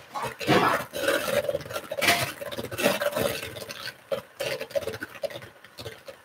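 Electric hand mixer beating gingerbread dough in a bowl, with an uneven churning and scraping that surges and eases every second or so.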